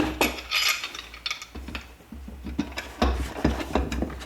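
Irregular clicks, knocks and short scrapes of hardware being handled: a perch being fitted and bolted into a pet carrier.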